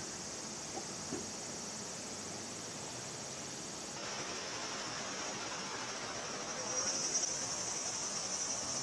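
Insects chirring, a steady high-pitched drone that grows a little louder about seven seconds in, with a couple of faint ticks about a second in.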